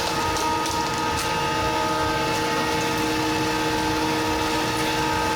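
Steady machine drone with several fixed tones over a low rumble, from shop equipment left running, with a few faint crackles about a second in.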